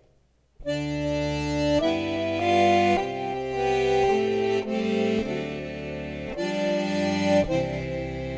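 Two accordions playing together, one carrying the melody and the other the harmony, in held chords that change every half second or so. The music starts about half a second in.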